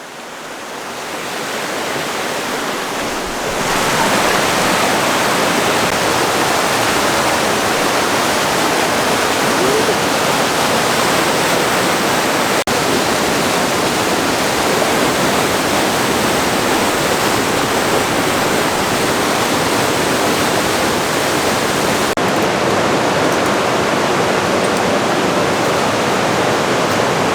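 Loud, steady rush of fast-flowing water from a rain-swollen stream, growing louder over the first few seconds and then holding steady.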